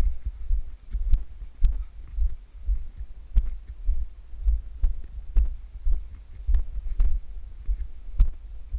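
Wind rumbling on the microphone, with the thuds and clicks of a hiker's footsteps on the trail every second or so.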